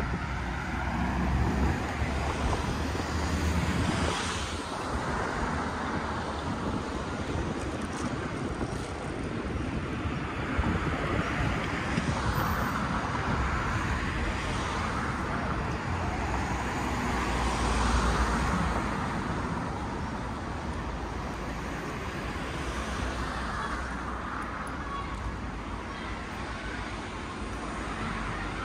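Street ambience of cars passing on a road, each one swelling and fading every few seconds, with wind rumbling on the microphone.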